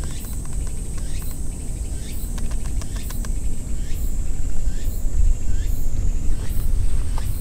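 Fingers tapping on a wooden bench: a quick run of about ten light knocks a little over two seconds in. Underneath are wind buffeting the action camera's microphone and a steady high insect drone, with a falling chirp that repeats about once a second.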